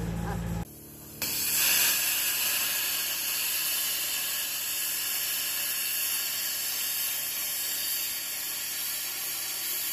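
Oxy-fuel cutting torch hissing steadily as it cuts through heavy steel, starting about a second in.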